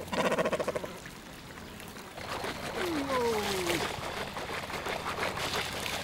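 A cormorant's rapid guttural croak in the first second, then two long falling calls a little past the middle, with water trickling.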